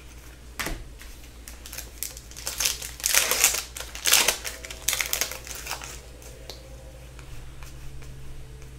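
Hockey cards and a foil pack wrapper being handled: crinkling and rustling with soft clicks, loudest about three to four seconds in, then fainter.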